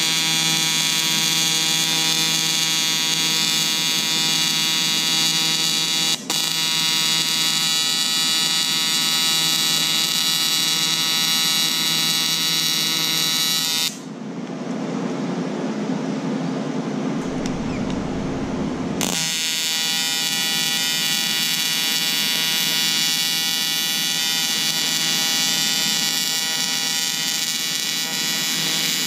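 TIG welding arc buzzing steadily while a seam is run on aluminum diamond plate, the hand-fed filler rod going into the puddle. It dips for a moment about six seconds in. Midway the buzz gives way for about five seconds to a rougher, noisier sound, then comes back.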